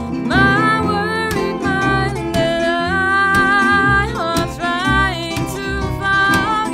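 A small band playing live: a woman singing long, wavering held notes over her acoustic guitar, with a plucked upright double bass and a lap steel guitar. The singing comes in just after the start.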